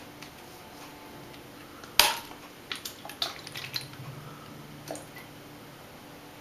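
Finger taps and flicks on a plastic water bottle of supercooled water, meant to set off freezing: one sharp tap about two seconds in, then a handful of lighter taps.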